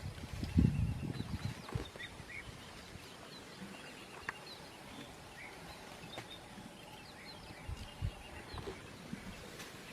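Birds chirping outdoors, short high calls scattered throughout. A low, fluctuating rumble in the first two seconds fades out, leaving a quiet background.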